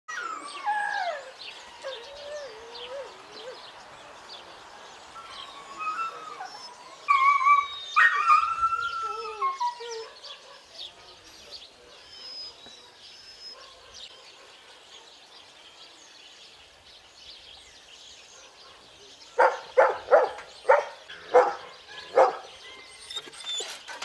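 Several dogs in kennels whining and howling with rising and falling calls, louder about a third of the way in. Near the end comes a quick run of about seven barks.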